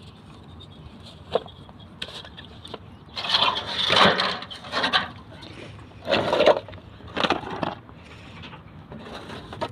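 Rough scraping and knocking: a long scrape about three to five seconds in, then two shorter ones, with a few sharp knocks between. These are loaves being put into a wood-fired bread oven.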